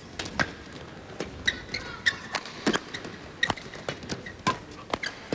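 Badminton doubles rally: rackets striking the shuttlecock in a quick exchange, sharp hits about once a second, with shoes squeaking and feet slapping on the court surface between shots.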